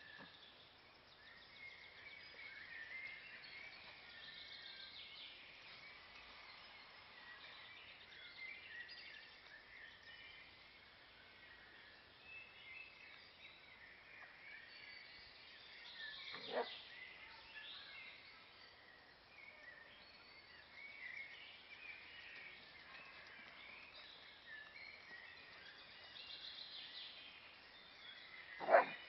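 Faint birdsong: small birds chirping steadily in the trees. Two short, sharp sounds break through, one about halfway and a louder one near the end.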